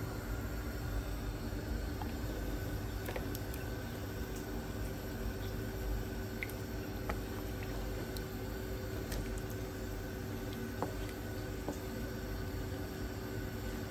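Pot of chicken curry simmering after water was added, bubbling softly over a steady low hum, with a few faint clicks.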